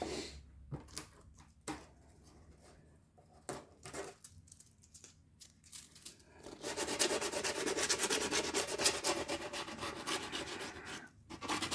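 Griptape being rubbed and scraped hard along the edge of a skateboard deck, a rapid rasping that starts about halfway through after a few light handling clicks and breaks off briefly near the end.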